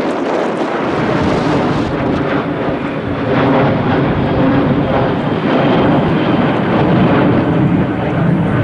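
Strong gusty wind buffeting the camcorder microphone, mixed with the steady engine noise of a jet airliner.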